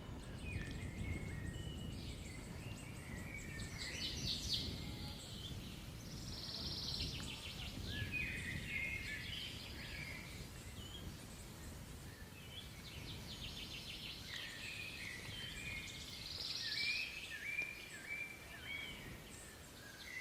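Birds singing and calling outdoors: many short chirps and rapid trills, in clusters, over a low steady rumble of wind or ambient noise.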